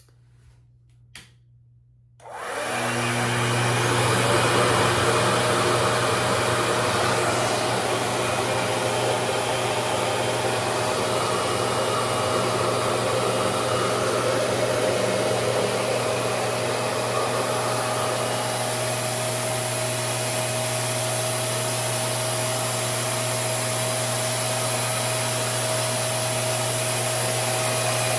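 A click, then about two seconds in a RevAir reverse-air blow dryer starts up and runs steadily, its fan and suction giving a rush of air with a steady hum, set to tension 6 on medium heat.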